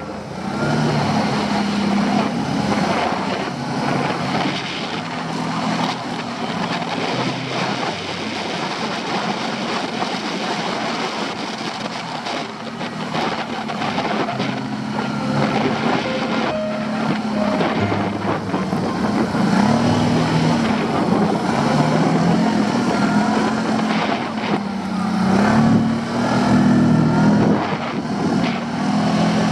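A motor vehicle's engine running steadily, its pitch falling and rising again several times as it revs and works.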